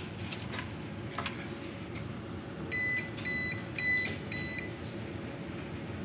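A 24 V UPS beeping four times, short high beeps about half a second apart: its alert on switching to battery after the mains plug is pulled. A few sharp clicks come before the beeps.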